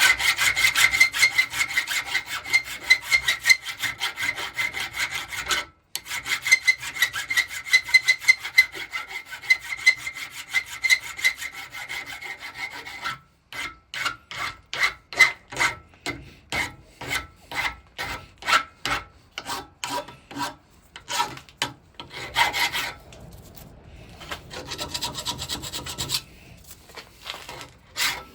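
Hand file rasping across the edges of a drilled metal bracket to take off the sharp edges. For the first half the strokes are fast and run together, with one short break. Then they come as separate, slower strokes, roughly two a second, with a few pauses.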